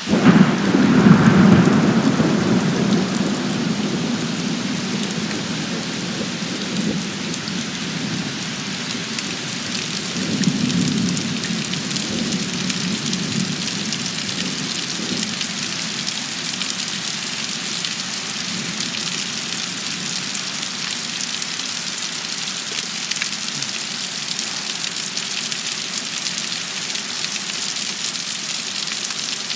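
Thunder cracks loudly right at the start and rumbles away over several seconds. A second, weaker rumble of thunder comes about ten seconds in. Steady rain falls throughout.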